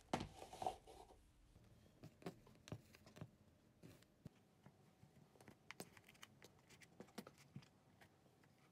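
A wet cleaning sheet being pulled from a plastic pop-up wipes case, a brief rustle near the start, then soft rustling and scattered small clicks as the sheet is spread out and fitted onto a flat floor-mop head.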